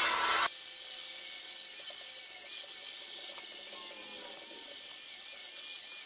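Cordless angle grinder grinding the welded horseshoe steel held in a vise: a steady, high, hissing grind of the disc on the metal.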